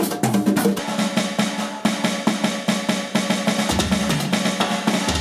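Rock music led by a drum kit playing rapid snare hits and bass drum, with a low bass line coming in a little before the end.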